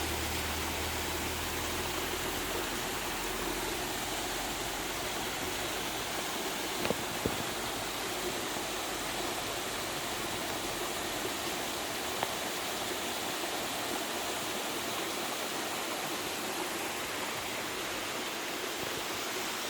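Seasonal forest waterfall and its stream rushing steadily, fed by rainy-season flow, with a few short clicks about a third of the way in and again past the middle.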